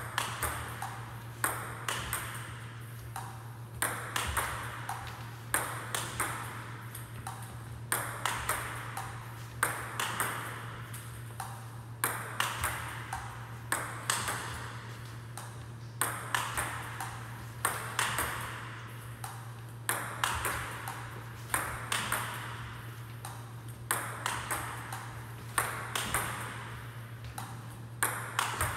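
Table tennis ball being fed and smashed in a drill: clusters of sharp clicks of the ball off paddles and table, repeating about every two seconds, over a steady low hum.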